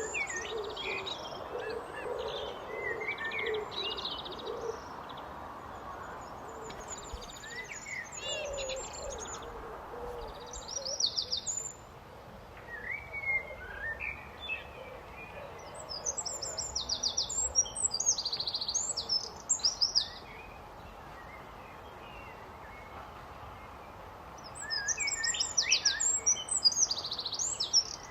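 Common blackbird singing in separate phrases with pauses between them, each phrase of whistled notes ending in high, squeaky twittering. Low cooing runs underneath for the first few seconds.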